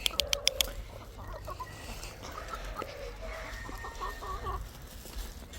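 Chickens clucking softly, short scattered calls, after a quick run of sharp clicks in the first half-second.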